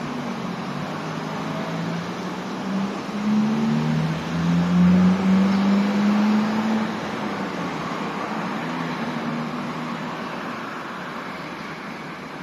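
Road traffic on a multi-lane road: steady tyre and road noise, with a passing vehicle's engine growing louder about three seconds in, loudest near the middle, then fading away.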